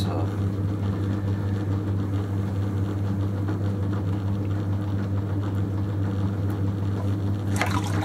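Electric potter's wheel running with a steady low hum, while wet hands squeeze and collar in a spinning clay cylinder with soft, wet slip sounds.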